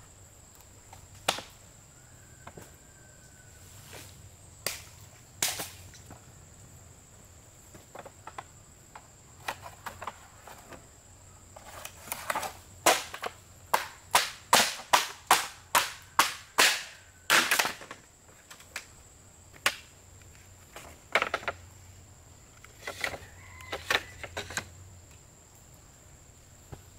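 Repeated sharp knocks: a burst of about a dozen, roughly two a second, in the middle, with scattered single knocks before and after.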